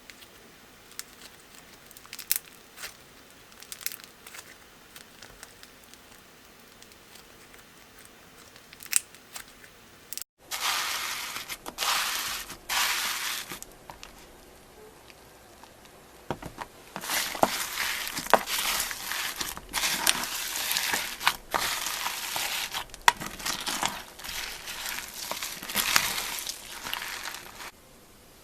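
Slime being handled, first with faint scattered sticky clicks. After a sudden cut about a third of the way in, crunchy slime is pressed and squeezed with dense crackling, which pauses briefly and then runs loud again to the end.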